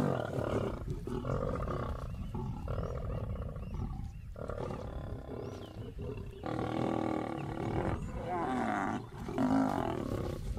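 Lions growling and snarling in a run of separate growls, each up to about a second and a half long, as they contest a kill.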